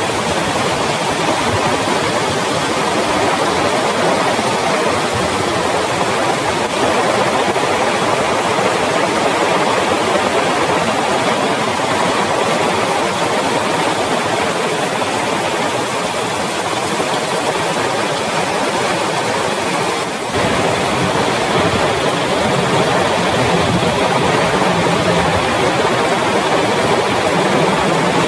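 Heavy rain pouring down in a steady, dense hiss. A faint low hum joins near the end.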